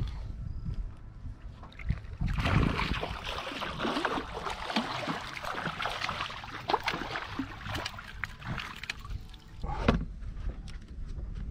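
Water splashing and sloshing as a striped bass thrashes in a landing net at the side of the boat, from about two seconds in to about nine seconds, with a brief thump near the end.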